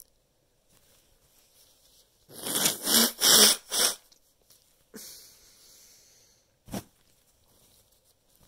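A person's forceful breaths through the nose, in a sneeze attempt brought on by chhinkni snuff: four quick loud blasts about two seconds in, then a sudden blast that trails off about five seconds in, and a short sharp one near seven seconds.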